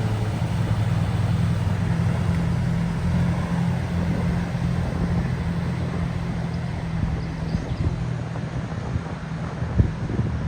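A vehicle engine runs steadily with a constant low hum over a rushing noise. The hum fades away about eight seconds in, and a few sharp knocks or gusts come near the end.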